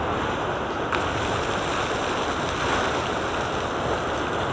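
Steady rush of water from a natural fountain whose jet is driven by the river's own pressure, spraying and splashing alongside the flowing river.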